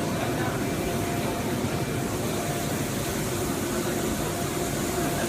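Steady mechanical hum and noise of machinery in an exhibition hall, with a couple of faint steady tones and no distinct strikes or events.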